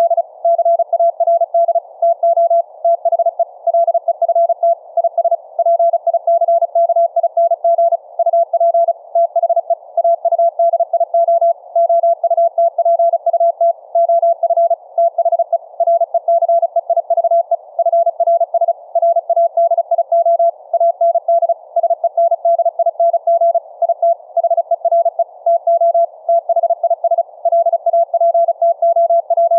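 Morse code (CW) at 35 words per minute: a single steady tone keyed rapidly on and off, spelling out typed text. It is heard through the audio output of a receiving FRS walkie-talkie, with a faint radio hiss between the characters.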